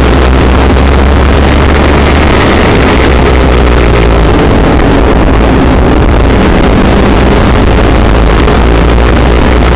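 A Legends race car's Yamaha motorcycle engine running hard at racing speed, heard loud and steady from inside the cockpit, with wind noise over the in-car camera microphone.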